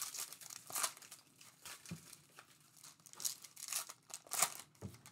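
Trading-card pack wrappers being torn open and crinkled by hand, in irregular crackling rustles.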